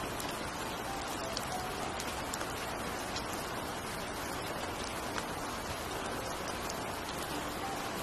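Heavy rain falling steadily on wet paving: an even hiss of drops, with a few single drops standing out now and then.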